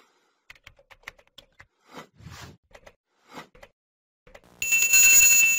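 Subscribe-button end-card sound effects: a few faint clicks and soft swishes, then about four and a half seconds in a loud bell-like ring with steady high tones, the notification-bell sound of the subscribe animation.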